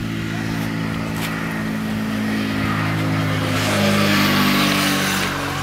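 A steady engine hum. It rises and shifts in pitch about three and a half to five seconds in, with a swell of hiss, then settles again.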